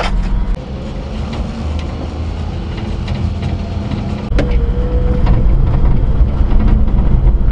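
Daihatsu Hijet Climber mini-truck's 660cc engine running under way on a rough dirt track, heard from inside the cab as a steady low rumble. It gets louder a little after four seconds in, with a sharp knock at that point.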